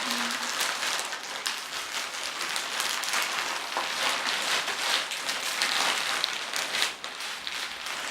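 Plastic bubble-wrap packaging being handled and unwrapped, rustling and crinkling with a dense run of small crackles.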